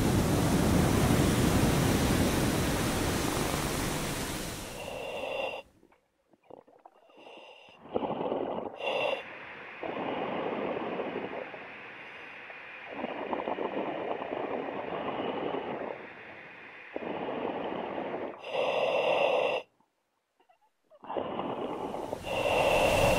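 Stormy-sea sound effects: a loud, steady roar of wind and waves that drops away about five seconds in, then comes back in broken stretches separated by short gaps of near silence.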